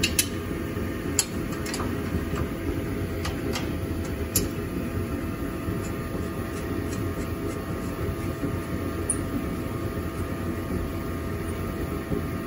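Sharp metal clicks and clinks from a box-end wrench working the 12 mm nuts off the stock exhaust mounts: a handful in the first four or five seconds, then fainter ticks. A steady low mechanical hum runs underneath throughout.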